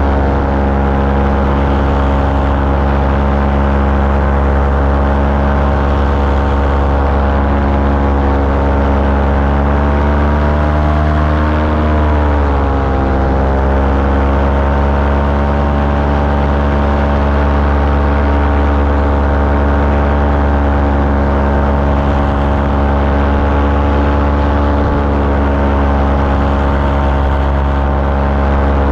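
Small aircraft engine running steadily in flight, loud and close. About eleven seconds in its pitch rises a little, then dips and settles back as the throttle is eased.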